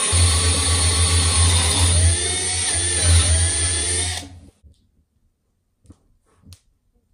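A power tool running steadily with a low hum, cut off abruptly about four seconds in; a few faint clicks follow.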